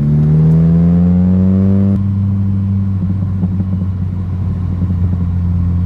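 MK6 Jetta GLI's tuned 2.0-litre turbocharged four-cylinder, running a 3-inch exhaust with a bullet muffler, pulling in second gear with its pitch rising. About two seconds in, the throttle lifts and the engine settles into a steady drone.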